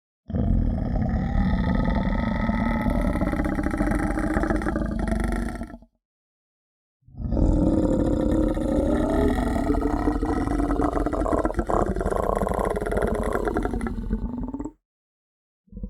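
Two long, rough guttural sounds made by a person, one after the other with a short silent gap between; each is continuous and rumbling, with a wavering pitch.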